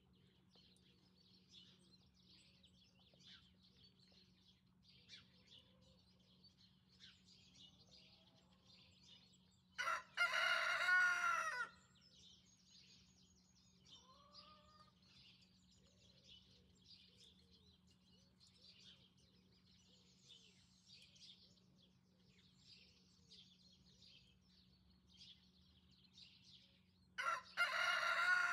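Rooster crowing twice, once about ten seconds in and again near the end, each crow a loud call about two seconds long. Faint chirping of small birds goes on between the crows.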